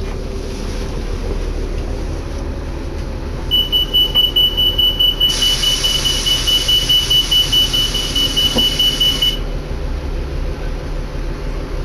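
Inside a 2011 New Flyer D60LFR articulated diesel bus: a high electronic warning beeper starts pulsing about a third of the way in, about two and a half beeps a second for some six seconds. Partway through, a steady hiss of compressed air joins it for about four seconds, over the low hum of the bus.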